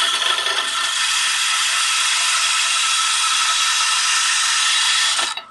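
Steady, loud hissing grind of abrasive on metal as a warped tractor valve cover is ground flat; it cuts off sharply near the end.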